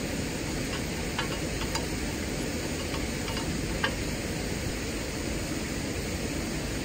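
Steady hiss of background noise, with a few faint light clicks about one to four seconds in as a hand tool works on the wing mower's engine at the carburetor.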